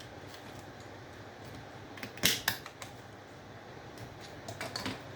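Small metal parts of a large circuit breaker clicking and clattering as it is taken apart by hand. There is a louder cluster of knocks a little past two seconds in and another near the end.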